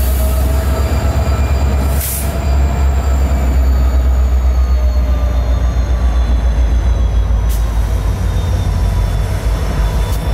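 CN diesel-electric freight locomotives passing close by at low speed: a deep, pulsing engine rumble with thin high-pitched wheel squeal, and a couple of sharp clicks.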